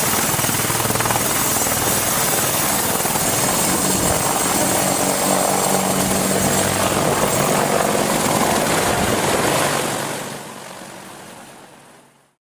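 Apache attack helicopter running steadily, a dense rotor and turbine noise that fades away about ten seconds in and then cuts off.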